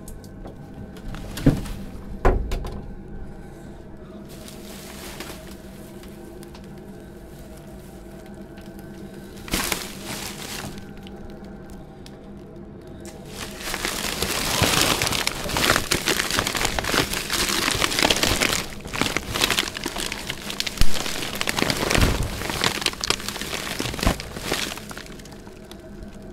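Black plastic bin bags crackling and crinkling loudly as they are squashed down into a plastic wheelie bin, a long run of crushing that starts about halfway through. Two sharp knocks sound about two seconds in.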